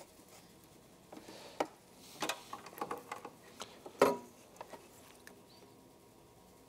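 Light clicks and knocks of a pair of snowmobile carburetors being handled and fitted together, with one louder knock about four seconds in.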